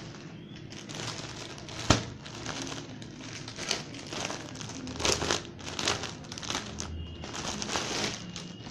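Rustling and crinkling as a folded kurti is handled and unfolded by hand, in irregular bursts, with one sharp click about two seconds in.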